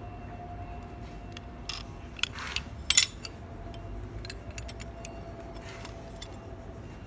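Metal clinks and clicks of a brass quick-release coupling and hand tools being handled while the coupling is screwed back onto a jetter hose fitting, with one loud clack about three seconds in.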